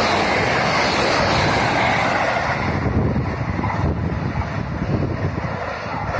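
JR West 681 series limited-express electric train passing at speed: a loud rush of wheels on rail and air. About three seconds in the hiss falls away and a low rumble fades as the train draws off.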